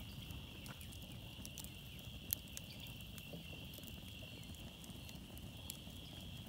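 Wood campfire burning, crackling with scattered snaps and one sharp pop a little over two seconds in. A steady high-pitched trill carries in the background throughout.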